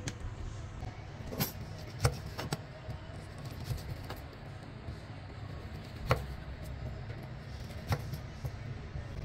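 A large kitchen knife slicing through a fried pork roll and knocking on the cutting mat: a handful of sharp knocks at uneven spacing, over a steady low rumble.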